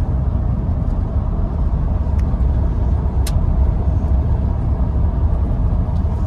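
Steady low rumble of a car's road and engine noise heard from inside the cabin while driving, with a single sharp click about halfway through.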